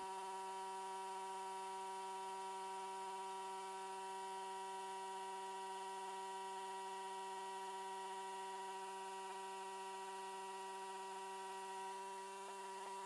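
Powerhorse 3-inch full trash pump's small gasoline engine running at a steady speed while the pump draws water, an even, unchanging hum.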